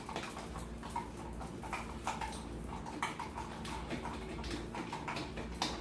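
Spoons stirring thick homemade flour, salt and water paint in plastic bowls: irregular light taps and scrapes against the bowl sides.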